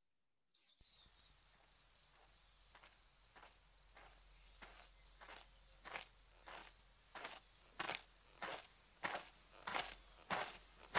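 Cartoon soundtrack: a steady high chirring of crickets with soft, evenly spaced footsteps of a walking kiwi, about three steps every two seconds, growing louder. It starts about a second in, after silence.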